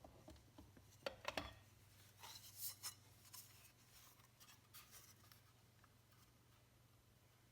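Near silence, broken by a few faint clicks about a second in and light metallic rubbing and ticking around two to three seconds: small parts of a motorcycle front wheel's axle assembly, such as shims and spacers, being handled.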